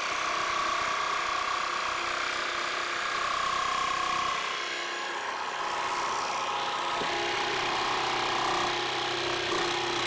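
Milwaukee FUEL cordless jigsaw running steadily as its blade cuts a circular hole in a plywood panel, with a held whine in its motor note that shifts slightly as the cut follows the curve.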